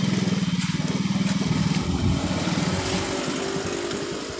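A small vehicle engine running close by with a fast, even beat, easing off and getting quieter from about two seconds in.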